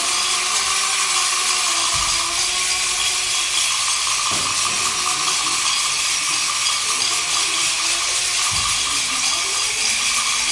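A steady, loud hissing rush with a faint held tone, broken by a few soft low thumps.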